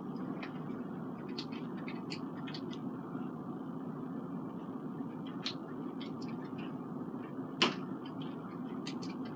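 Steady low background noise with scattered faint clicks and taps, and one sharper tap about three-quarters of the way through.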